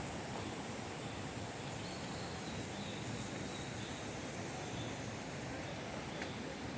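Outdoor forest ambience: a steady high insect drone over an even low rumble, with a faint bird call or two.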